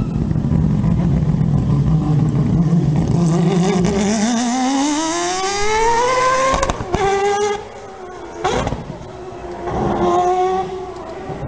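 Mazda 787B's four-rotor rotary engine accelerating past: a low, steady note for a few seconds, then climbing in pitch, breaking off at upshifts about seven and eight and a half seconds in, and growing quieter as the car pulls away.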